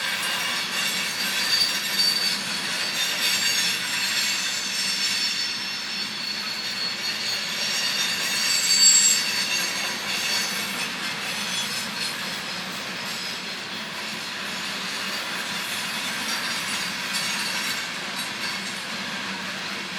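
Train cars rolling past with the wheels squealing, a continuous cluster of high, thin tones over a steady rumble and hiss, loudest about nine seconds in.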